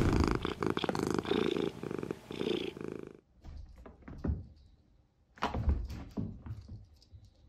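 A cat purring for about three seconds. Then come a few soft thumps and paw patters as a black cat leaps and lands on a cloth-covered floor.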